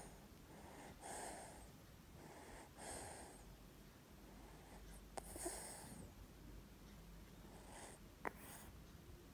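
Faint breathing of a baby with a cold and mucus in the chest: a soft, noisy breath about every two seconds, with a couple of small clicks.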